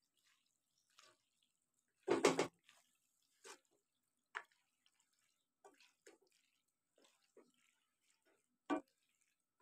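Slotted spoon scraping and knocking in a pan while stirring cooked macaroni and potato curry, heard as a few short, wet scrapes. The loudest comes about two seconds in and another near the end.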